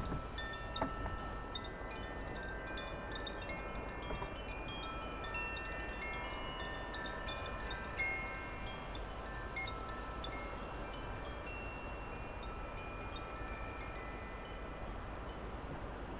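Wind chimes ringing irregularly, many clear notes at different pitches overlapping and dying away, over a steady low rumble of wind.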